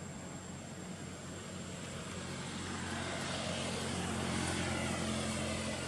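A motor's steady drone with a low hum, growing louder for about two seconds and then holding.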